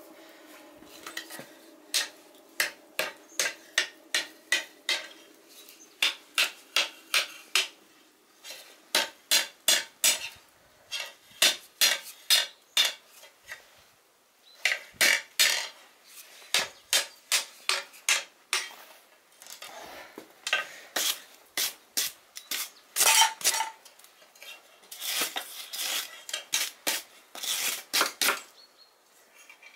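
Hand hammer striking hot steel on an anvil in runs of blows, about two a second, each blow ringing sharply, with short pauses between the runs.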